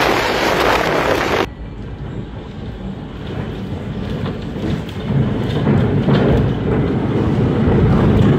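Tornado wind. First it is loud wind noise hitting the microphone. After a sudden cut about a second and a half in, it becomes a deeper, muffled wind rumble heard from indoors through a window, growing louder from about five seconds in.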